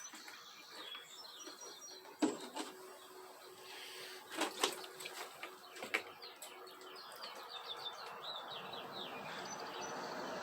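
Small birds chirping and trilling, with a few sharp plastic knocks and clicks from handling a chain-cleaner housing, loudest as a quick cluster about halfway through. A soft hiss builds near the end.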